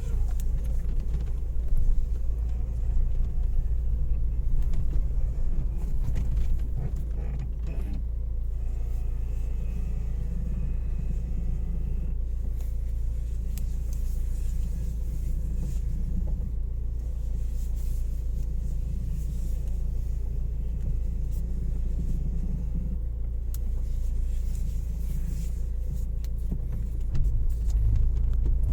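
Renault Mégane II heard from inside while driving: a steady low road rumble with scattered faint creaks and clicks, the squeak that the owner is chasing.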